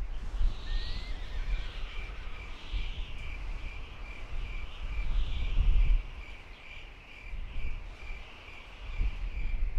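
Outdoor nature ambience: a brief rising bird whistle near the start, then a long, even series of short high chirps, about three a second, over a low rumble that swells around the middle.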